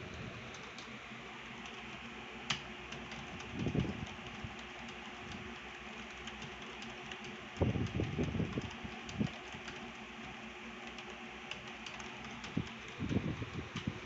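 Fast typing on a computer keyboard during a timed typing test: a quick run of light key clicks over a steady fan hum. Three times a cluster of dull low thumps sounds louder than the keys, about four seconds in, around the eight-second mark, and near the end.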